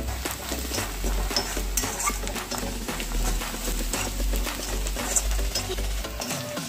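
A spoon stirring and scraping in a cooking pan, with frequent short clicks of the spoon against the metal.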